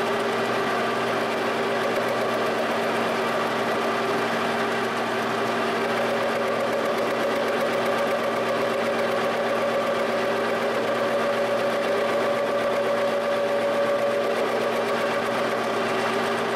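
Rotary phase converter and Giddings & Lewis horizontal boring mill running: a steady electric hum made of several even tones. A higher steady whine joins about six seconds in and fades out about fourteen seconds in.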